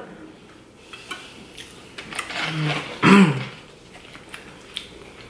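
Light clicks and taps of a fork against a foil pan and dishes, with a short wordless voice sound, the loudest part, about three seconds in.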